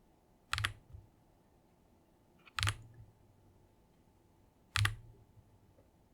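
Three single keystrokes on a Feker IK75 mechanical keyboard with KTT Wine Red linear switches and white pudding keycaps, about two seconds apart. Each is a sharp clack with a deep thud, followed by a softer click as the key comes back up.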